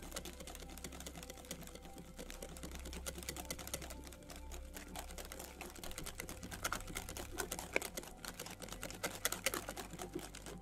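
Wire whisk beating thick waffle batter in a glass bowl, its wires clicking rapidly against the glass, louder in the second half and stopping at the end.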